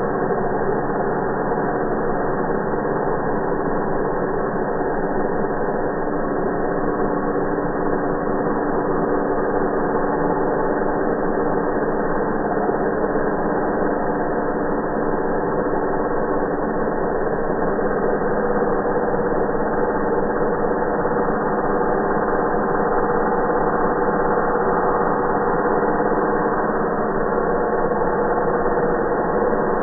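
Angle grinder running, its sound slowed down about eight times along with the slow-motion picture, so it is heard as a low, steady drone of several held tones with all the high pitch gone.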